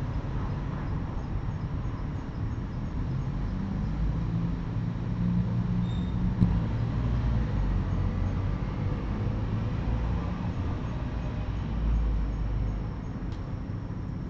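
Low rumbling that swells and eases over several seconds, with one sharp click about six seconds in and a stronger swell near the twelve-second mark.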